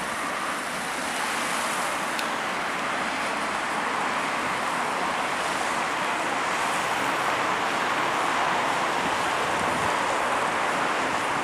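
Steady hiss of road traffic, tyres on wet roads, with no single car passing out clearly.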